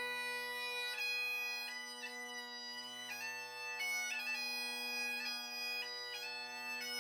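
Bagpipes playing a slow melody over a steady drone.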